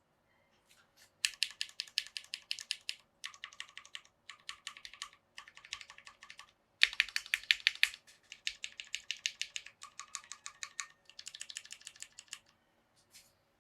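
Typing in quick runs on a Tofu60 acrylic-case mechanical keyboard with lubed Cherry MX Black linear switches, an O-ring faux gasket mount and PBT keycaps. Several bursts of fast keystrokes with short pauses between them, the loudest burst about halfway through.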